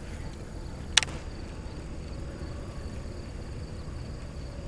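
Crickets chirring steadily in the background over a low steady rumble, with a single sharp click about a second in.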